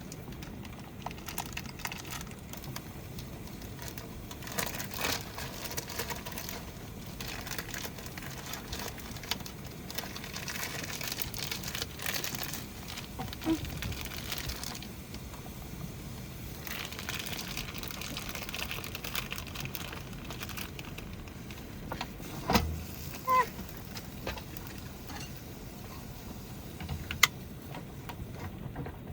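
Irregular light clicks, taps and rustling from hands preparing food, over a steady patter of heavy rain. There are a few sharper knocks a little past the middle and near the end.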